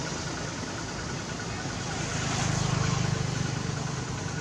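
A motor engine drones steadily, swelling louder a little past the middle and easing off toward the end, like a vehicle passing.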